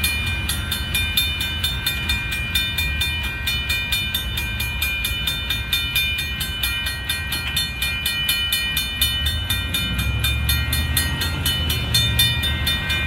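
Railroad crossing bell ringing fast and steadily, about four to five strikes a second, over the low rumble of a Union Pacific hopper car train rolling through the crossing.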